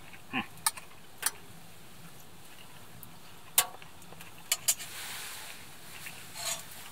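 Fork clinking and scraping against a plate while eating, a few sharp separate clicks, the loudest about halfway through. Near the end there is a short cluster of knocks and rustling as things are moved about.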